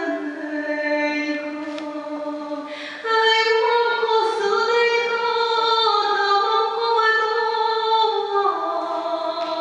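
A young woman singing solo a cappella into a microphone, with no accompaniment: long held notes that step between pitches, getting louder about three seconds in.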